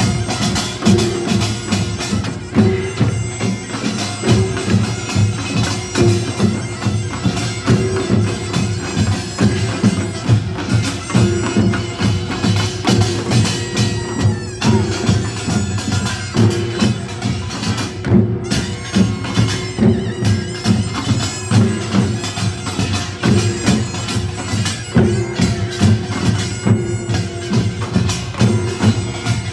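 Korean nongak farmers' band music in the Gyeongsang-province style: a percussion ensemble of small gongs and drums beating a fast, steady rhythm, under the piercing, nasal melody of a taepyeongso shawm.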